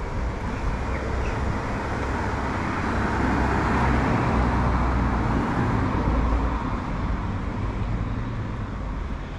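Road traffic: a car passing, its tyre and engine noise swelling to a peak about four seconds in and then fading.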